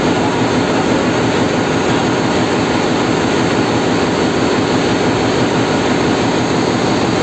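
Loud, steady machinery noise in a container ship's engine room: an even, unbroken din with no single event standing out.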